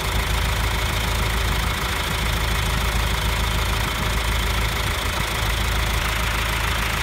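John Deere 2555 tractor's three-cylinder diesel engine idling steadily while it holds a suspended load.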